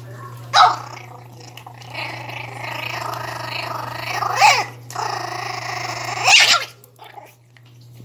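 Miniature pinscher puppy growling at its food bowl, broken by three sharp barks: about half a second in, midway, and a little after six seconds. Food-guarding growls while a hand touches it as it eats.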